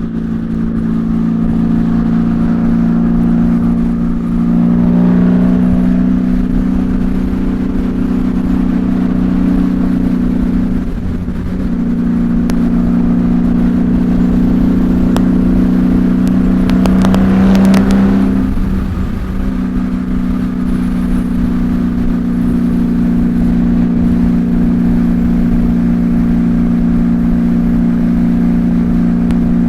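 Honda Valkyrie's flat-six engine running through six-into-six Cobra pipes at steady highway cruise, heard from inside the rider's helmet with wind rush. The engine note dips briefly twice, about eleven seconds in and again near twenty seconds.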